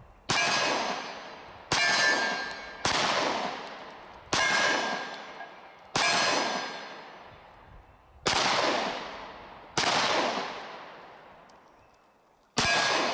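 Eight 9mm shots from a Glock 26 Gen 5 pistol, fired one at a time about one to two and a half seconds apart, each with a long echoing decay. After several shots there is the ring of a hit steel target.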